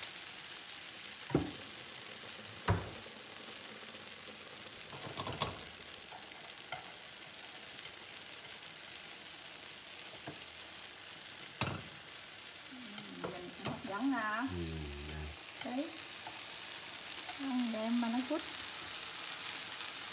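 Tomato and egg sauce sizzling steadily in a frying pan, with a few sharp knocks of chopsticks and a spatula against the pan in the first half. A person's voice is heard briefly, twice, in the second half.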